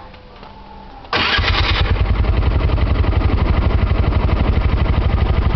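Three-wheeled mototaxi's small engine being started: it catches abruptly about a second in with a loud burst, then keeps running with a fast, even pulsing.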